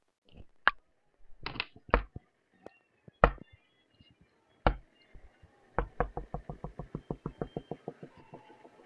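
Sharp knocks in a small room: single raps at irregular gaps, the loudest a bit over three seconds in, then from about six seconds a fast run of about seven knocks a second that fades away.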